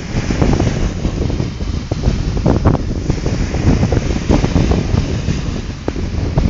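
Wind buffeting the phone's microphone with a low, uneven rumble, over small sea waves breaking and washing up onto the sand.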